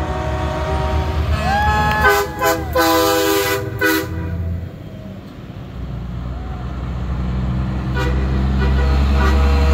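Semi-truck air horns sounding in long held blasts of several tones at once for the first four seconds, one tone sliding up as it opens. After a short lull, a big diesel truck's engine rumble builds as the next truck comes on, with horns starting again near the end.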